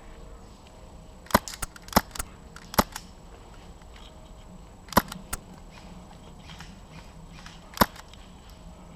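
Airsoft guns firing: sharp, irregular snapping cracks, a cluster of about five or six between one and a half and three seconds in, two more about five seconds in, and one near the end.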